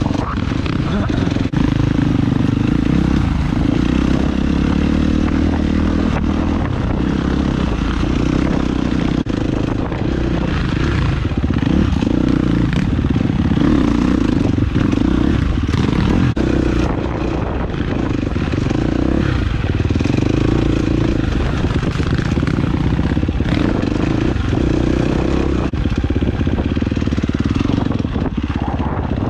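Dirt bike engine running under way, its revs rising and falling with the throttle.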